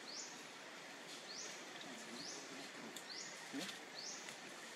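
Outdoor ambience with a small animal's high chirp, a quick upward sweep, repeated every second or so over a steady background hiss.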